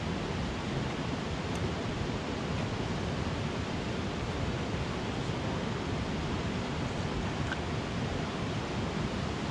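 A mountain creek rushing over rocks, a steady even rush of water.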